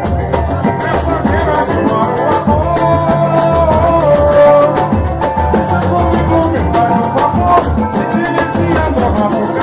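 Drum-led percussion music from a percussion group, with a steady pounding rhythm and a melody gliding above it.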